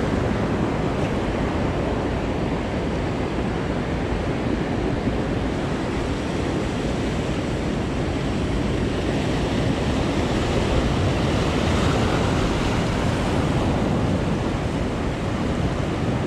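Sea surf washing and foaming against the boulders of a rock jetty: a steady rush that swells slightly about two-thirds of the way through.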